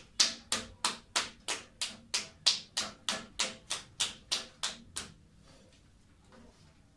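Hands slapping a cone of wet clay on a potter's wheel in an even rhythm, about three slaps a second, stopping about five seconds in.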